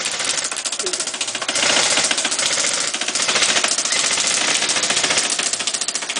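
Airsoft gun firing on full auto: a rapid, continuous rattle of shots.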